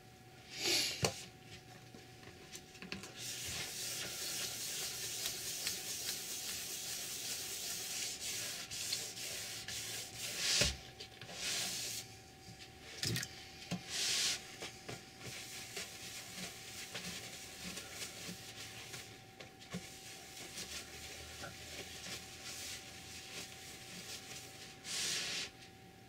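Hand-sanding cured oil paint on a pine speaker box with 400-grit sandpaper, a steady rubbing hiss broken by pauses and a few louder strokes, with a knock partway through. The sanding is flattening the paint and knocking down its high spots.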